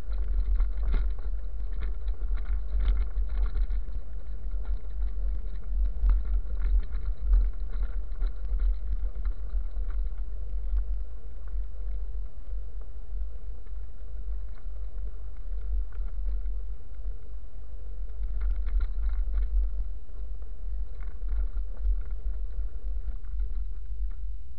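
Steady low wind rumble on a handlebar-mounted camera's microphone, mixed with tyres crunching and rattling over a gravel road. The jolts are heavier in the first several seconds and again about three-quarters of the way through.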